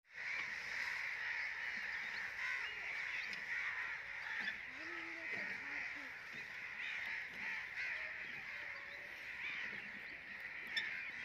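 A large flock of crows calling together, with many caws overlapping into a continuous chorus.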